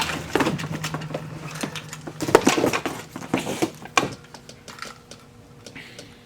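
Sewing machine foot pedals and parts being rummaged and handled in a box, clattering and knocking irregularly for the first few seconds, then quieter.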